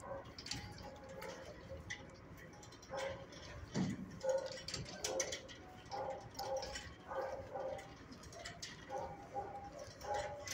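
Shelter dog eating: scattered clicks and crunches of chewing. Over them come many short, high-pitched dog cries.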